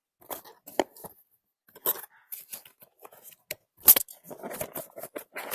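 Toy packaging and small plastic pieces being handled: irregular rustles, taps and clicks, the sharpest click about four seconds in.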